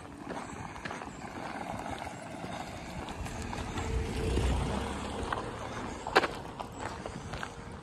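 Footsteps of a person walking on a rough gravel lane, crunching at a steady pace. A low rumble swells about four seconds in and fades, and a sharp click stands out about six seconds in.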